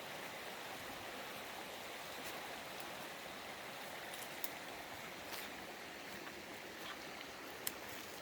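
A small creek running: a steady, even rush of flowing water, with a few faint clicks in the second half.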